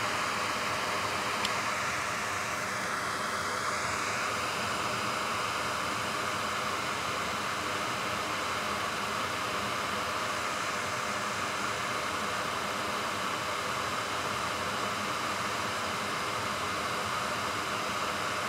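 Steady, even background hiss of room noise, unchanging throughout.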